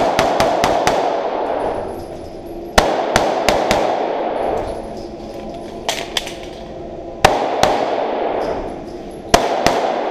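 Pistol shots fired in quick strings of two to five, with pauses of one to two seconds between strings; each shot rings on with a reverberant tail.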